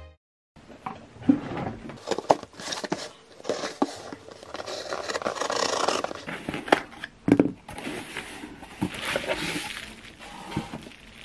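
Everyday handling sounds: scattered small clicks and knocks mixed with scraping and rustling, as objects are picked up and moved about.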